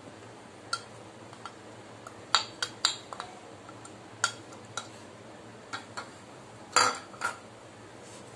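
Small steel spoon tapping and scraping against a container and a stainless steel bowl while scooping ginger garlic paste: a scatter of sharp clinks, a quick cluster of them a little over two seconds in, and the loudest nearly seven seconds in.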